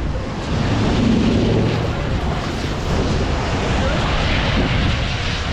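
Hurricane wind, a loud, steady rushing noise.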